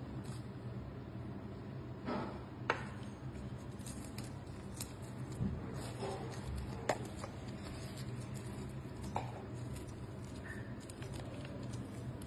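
Dried red chillies being handled: scattered light clicks and rustles as they are lifted from a plastic tub and set down on a plate, over a steady low hum.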